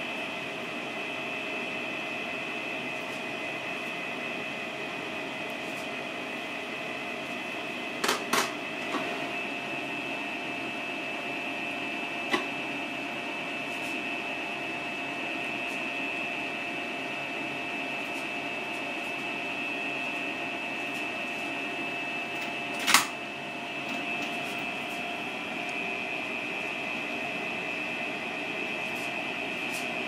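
Steady hum of a running machine or appliance, with a thin high whine held at one pitch over it. A few sharp clicks stand out: two in quick succession about eight seconds in, a lighter one a few seconds later, and the loudest one near the end.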